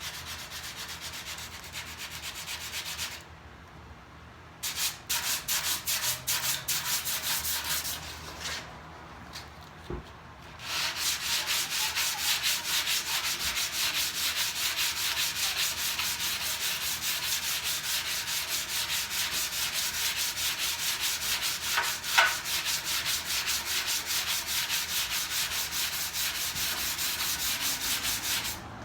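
Sandpaper rubbing over cured Bondo body filler in quick, even back-and-forth strokes, smoothing the filled surface. The strokes pause briefly twice in the first third, and there is one sharp tap about two-thirds of the way through.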